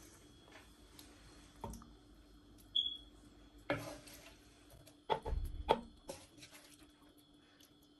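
Kitchen utensils knocking against a cooking pot: a handful of sharp knocks in the middle and one short metallic clink just before them, over a faint steady hum.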